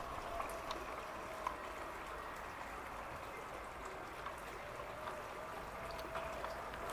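Garden-railway model train running round a track, a steady hiss of wheels on the rails with a faint wavering motor whine and occasional light clicks as the wheels pass over rail joints.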